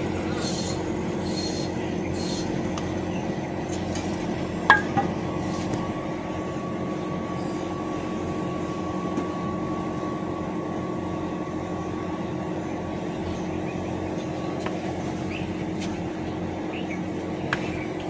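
Outdoor unit of an R32 inverter split air conditioner running steadily with a low hum while refrigerant is charged into it. A sharp click comes about five seconds in, after which a faint steady whine joins the hum, and a lighter click comes near the end.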